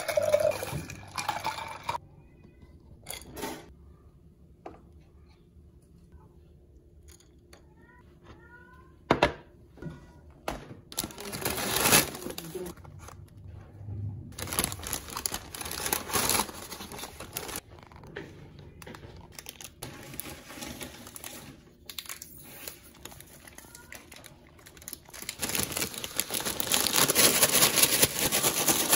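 Iced coffee and ice pouring from a paper cup into a glass jar at the start. Then paper and cardboard packaging crinkles as a nuggets box is handled. Near the end, fries are shaken hard in a paper Shake Shake bag, the loudest sound.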